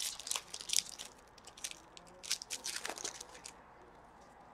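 Plastic wrapper of a 2014-15 Upper Deck Series 1 hockey card pack being torn open and crinkled by hand, in quick irregular crackles that die away about three and a half seconds in.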